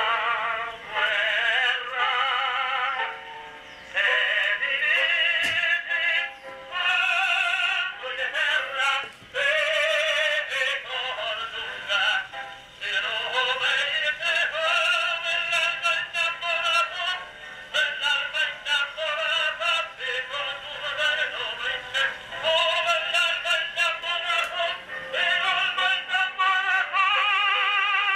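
Edison Standard cylinder phonograph playing back a cylinder record of a singer through its horn. The sound is thin and tinny with no bass, and the voice sings with a wavering vibrato in phrases broken by short pauses.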